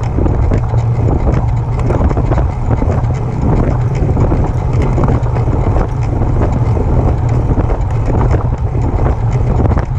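Specialized Turbo electric bike ridden under pedal power: a steady motor and drivetrain noise with a rhythmic pulsing, the noise that comes while pedaling, under a heavy low rumble of wind on the microphone.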